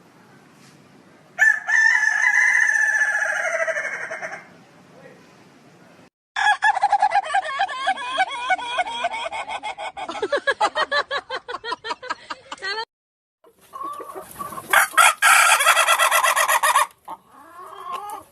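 Roosters crowing in three separate recordings cut together. First comes a crow of about three seconds, then a long crow of about six seconds broken into rapid stuttering pulses, then another crow about three seconds long. Each one starts and stops abruptly.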